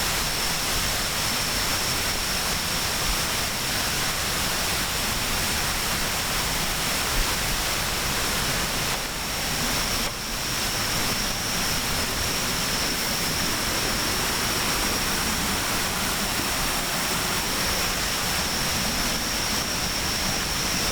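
Steady rush of running water, an even wash of noise with a thin, steady high-pitched tone above it; the loudness dips briefly about ten seconds in.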